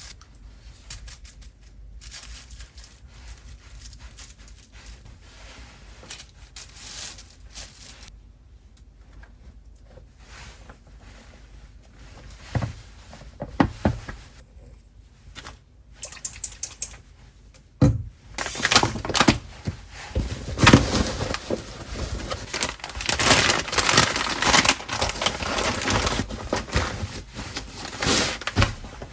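Kitchen handling sounds: scattered light clicks and knocks of containers and utensils, then, from about two-thirds of the way in, a louder, denser run of crackling, rustling and clattering.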